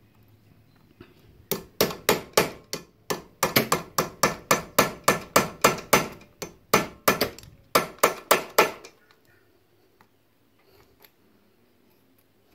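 Hammer striking a flat-blade screwdriver held as a chisel against a motorcycle drive chain link: a steady run of sharp metal-on-metal taps, about three to four a second, starting about a second and a half in and stopping about nine seconds in. The blows are working the chain link loose to cut the chain shorter.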